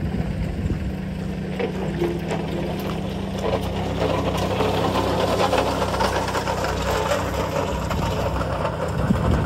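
An engine idling steadily at an even speed.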